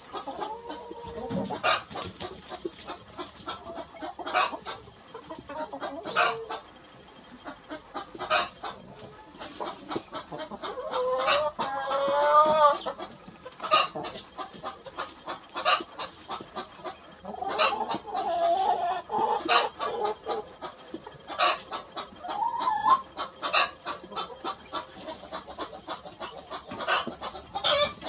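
Chickens clucking, with many short sharp clucks throughout and a longer wavering rooster crow about eleven seconds in.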